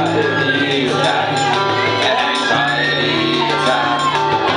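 Live indie rock band playing: guitars, bass and drums, with a voice singing over them.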